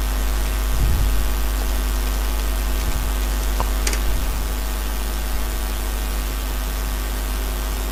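Steady low electrical hum with hiss from an open recording microphone, with a couple of faint clicks about halfway through.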